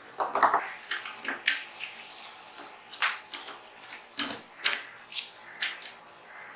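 Irregular sharp metallic clicks and taps from the parts of a Zigana 36 pistol being handled and taken apart, with a denser cluster of clicks just after the start.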